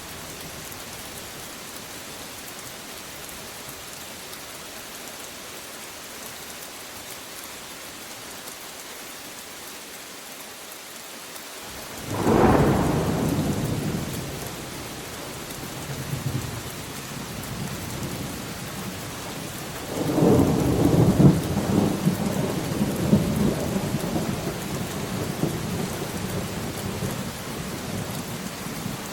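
Steady rain falling, with a sudden clap of thunder about twelve seconds in that fades over a few seconds. A second, longer peal of thunder starts about twenty seconds in and slowly dies away.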